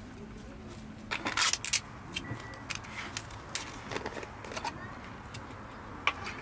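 Chopsticks clinking and scraping against a stainless steel bowl, in a loud cluster about a second in. Scattered clicks and taps follow as a plastic-lidded jar is handled.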